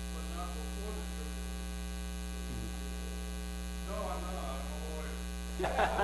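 Steady electrical mains hum on the recording, with a faint, distant voice talking off-microphone. Louder voices break in near the end.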